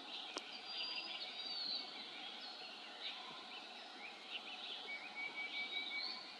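Several small birds chirping and twittering over a steady outdoor hiss, with a thin high whistle about half a second in and a quick run of short repeated notes near the end. A single sharp click comes just before the whistle.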